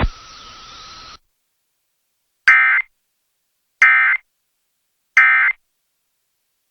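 Three short bursts of Emergency Alert System SAME digital data tones, a harsh two-tone buzz, each about a third of a second long and spaced about a second and a third apart. This is the end-of-message code that closes a broadcast warning.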